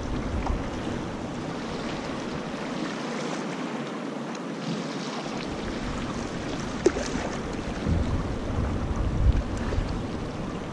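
Fast river current rushing and swirling around a moving canoe, with wind gusting on the microphone, most strongly near the start and again about eight to nine seconds in. One sharp click a little past the middle.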